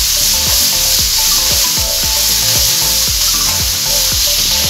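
Mushrooms, broccoli and zucchini sizzling as they are sautéed in olive oil in a frying pan, a steady frying hiss.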